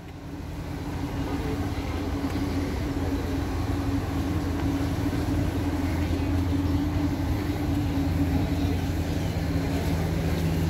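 Steady low mechanical hum with a held higher tone, over a noisy outdoor background; it fades in during the first second.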